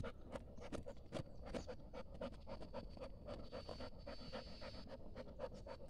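A dog panting fast and rhythmically, faint and steady, as it digs and bites at hard dirt with its paws and mouth.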